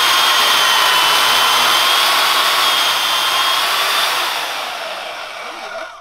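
Bauer portable band saw running and cutting through red-painted steel tubing from a mini bike frame: a loud, steady motor and blade whine. It fades over the last two seconds as the cut finishes, with its pitch dropping.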